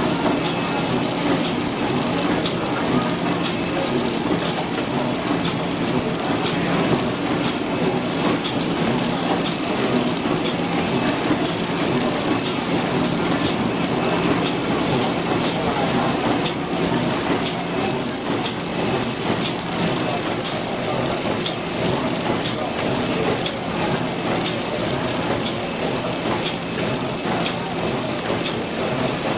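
Automatic hamburger packing machine and its belt feeding conveyor running, a steady mechanical din with a low hum and fine rapid ticking.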